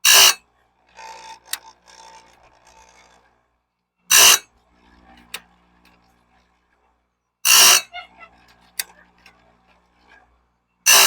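Grinding wheel of a small electric chainsaw-chain sharpener touching bandsaw blade teeth. There are four short, loud grinding bursts about three and a half seconds apart, one tooth per pass, with faint scraping and clicks between them as the blade is moved on.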